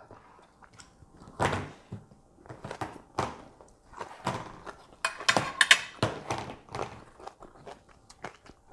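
Scattered knocks and clatter of tableware and food handling at a meal, with a louder run of clattering and scraping about five seconds in.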